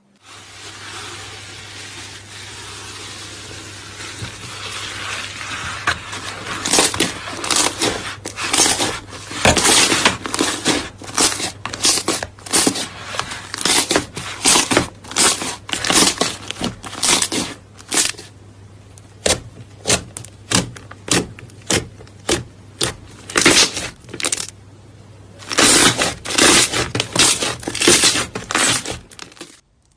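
Slime being worked by hand: a few seconds of continuous crackly stretching, then a long run of sharp squishing pops at about two a second, softer and clickier for a stretch before growing loud again near the end. A faint steady low hum lies underneath.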